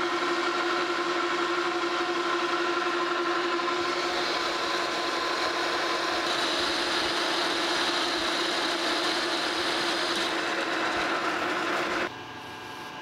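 Metal lathe running, turning a metal stud under a heavy roughing cut: a steady machine whine with several held tones over the hiss of the cut. About twelve seconds in the sound drops off abruptly to a much quieter hum.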